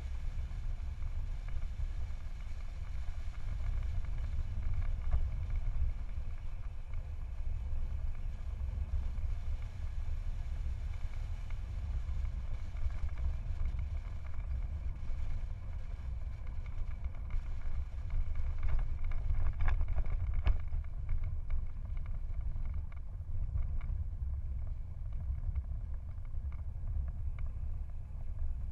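Wind rumbling on the microphone of a camera carried on a moving bicycle, mixed with steady road noise from riding on tarmac. There are a few brief rattles about two-thirds of the way through.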